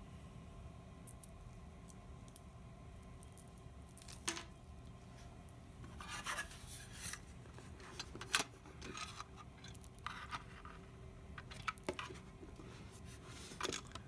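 Hands handling small computer parts and the NUC's metal bottom cover with its drive bracket: scattered clicks, taps and brief rubbing scrapes, the sharpest click about eight seconds in, over a low steady hum.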